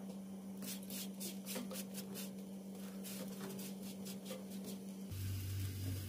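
Oil crackling and popping under a paratha frying on a hot tawa, with scattered sharp pops that thin out after the first few seconds.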